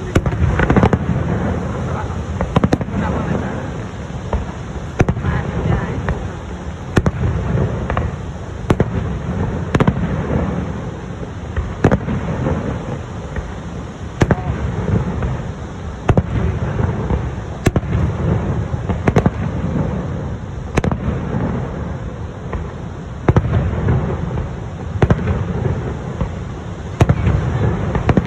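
Fireworks display: aerial shells bursting in sharp bangs every second or two, over a continuous low rumble and crackle.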